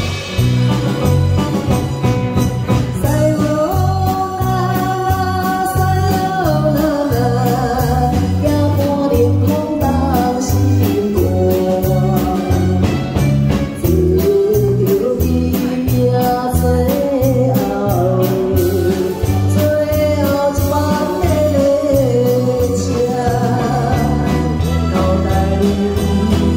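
A woman singing a song into a microphone over live band accompaniment of electric guitars and keyboard, with a steady beat underneath.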